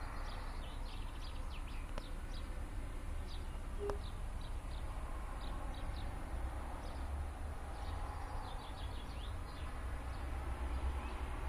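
Small birds chirping outdoors, many short, quickly falling notes in loose clusters, over a steady low rumble.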